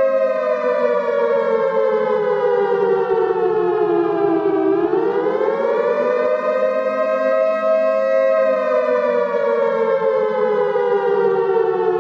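A warning siren wailing slowly and loudly: its pitch slides down, swings back up sharply about five seconds in, holds for a few seconds, then slides down again.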